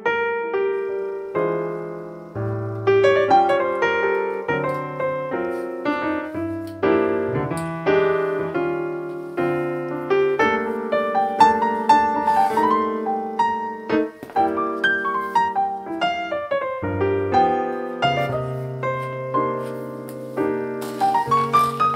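Background piano music: a steady run of struck, decaying notes over held bass notes, ending with a rising run of notes and a high shimmer.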